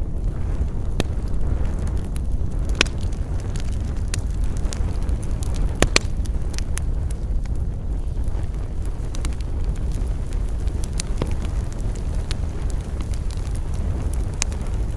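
Wood fire burning with a steady low rumble and sharp crackling pops scattered irregularly through it, the loudest a quick double pop about six seconds in.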